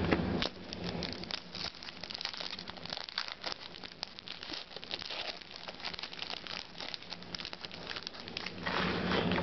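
Foil wrapper of a baseball card pack crinkling as it is handled and torn open by hand, a dense run of fine crackles.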